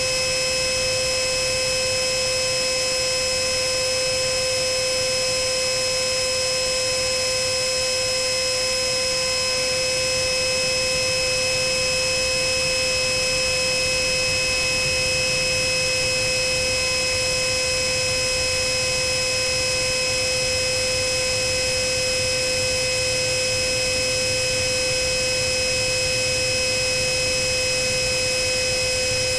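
Electric ducted fan of a model jet, a GWS 64 mm fan on a Cyclone Power CP400 brushless motor, running at a steady whine over wind hiss, heard from a camera mounted on the plane.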